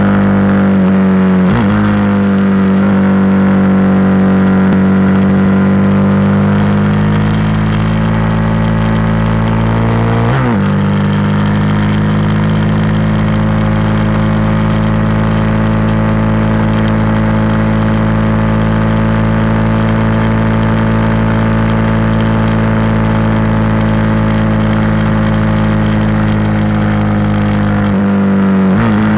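KTM SMC supermoto's single-cylinder engine running hard at high revs on track, heard from the bike itself. There is a quick gear change about a second and a half in and another about ten seconds in, and the engine pitch falls in steps near the end as the rider downshifts.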